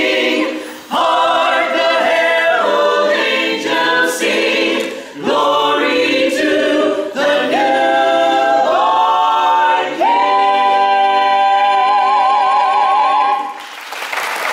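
Mixed men's and women's a cappella choir of carolers singing a holiday song in close harmony, ending on a long held chord with vibrato in the top voice. Applause breaks out right at the end.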